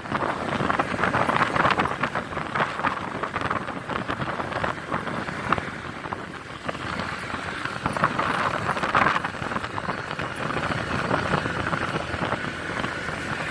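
Wind rushing and buffeting over the microphone of a moving motorcycle, mixed with the bike's running noise.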